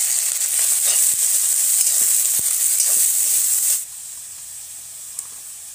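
Chunks of turtle meat frying in hot oil with browned onions in a steel kadai: a loud sizzle with a few clicks and scrapes of the steel spatula. About four seconds in, the sizzle drops suddenly to a much quieter hiss.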